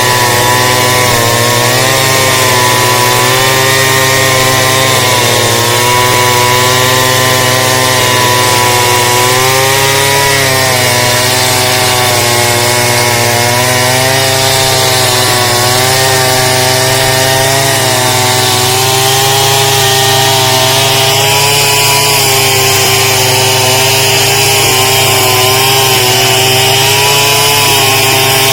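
A chainsaw engine running at high revs throughout, its pitch dipping and recovering again and again as the chain cuts into wood.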